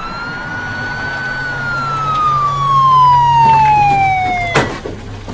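Police car siren wailing: after a quick rise it falls slowly in one long sweep, then cuts off with a sharp click about four and a half seconds in.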